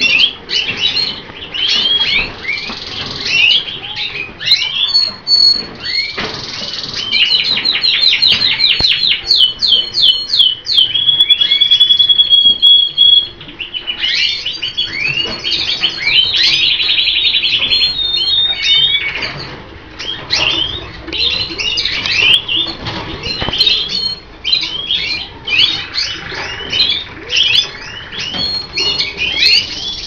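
Colour canaries singing: quick chirps and fast rolling trills, with one steady whistled note held for about two seconds midway.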